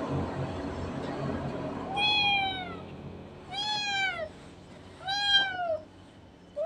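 Cat meowing three times, each call under a second long and rising then falling in pitch, about a second and a half apart; a fourth meow starts at the very end.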